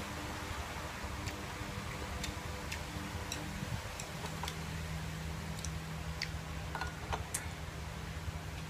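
Standing electric fan running with a steady hum, with scattered light clicks and taps of chopsticks against bowls and dishes during a meal, about one or two a second at irregular intervals.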